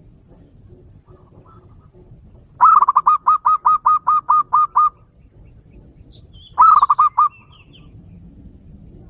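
Zebra dove (perkutut) lure call: a rapid run of about ten short cooing notes, roughly five a second, then a shorter run of four about two seconds later.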